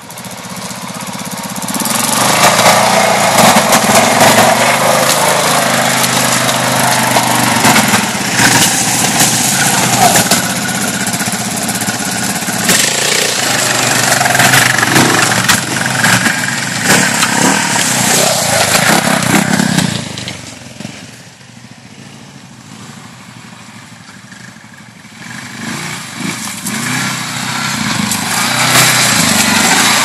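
Quad bike (ATV) engines running and revving off-road through brush. The engine sound drops off about two-thirds of the way through, then builds again as a quad comes close near the end.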